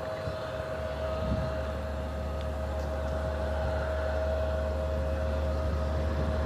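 Boeing 777 jet engines on approach: a steady whine over a low rumble, growing slowly louder.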